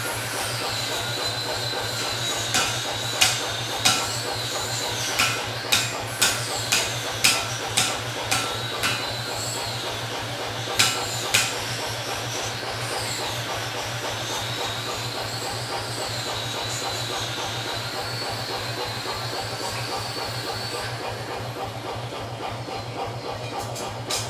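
Blacksmith's hammer striking hot metal in irregular runs of ringing blows, about fourteen in the first half, then stopping. Underneath is a steady hiss with a wavering high tone and a low hum.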